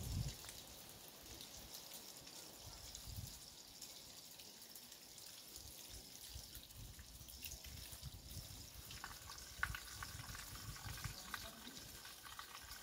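Water running and trickling from an outdoor tap, faint and steady, as mangoes are rinsed under it.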